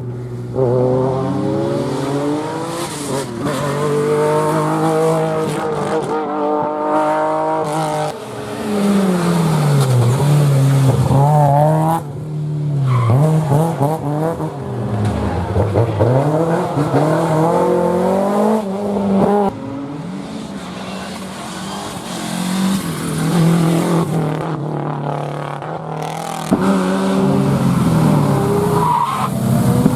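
Rally cars driven hard: engines revving up, dropping sharply at gear changes and lifts, then climbing again, with tyre squeal.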